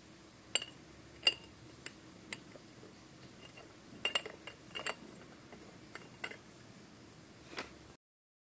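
About ten light, uneven clinks and taps of metal dishware, the loudest about a second in and a quick cluster around four to five seconds, each with a brief metallic ring, over faint room hum; the sound cuts off near the end.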